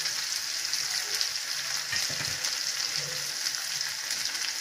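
Okra, peanuts and curry leaves sizzling steadily in hot oil in a kadai.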